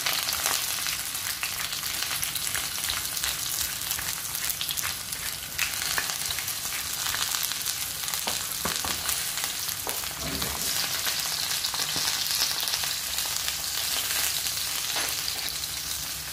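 Button mushrooms frying in hot olive oil in a nonstick pan: a steady sizzle with scattered small crackles and pops.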